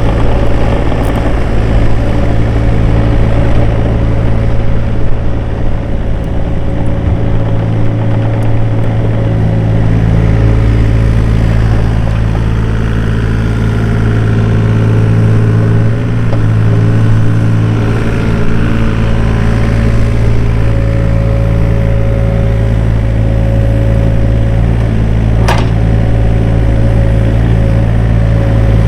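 Case CX36B mini excavator's 28 hp Yanmar diesel engine running steadily while the machine works, with a single sharp knock near the end.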